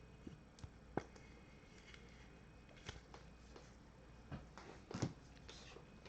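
Faint handling of trading cards: scattered soft clicks and light rustles, with a sharper tap about a second in and another near five seconds.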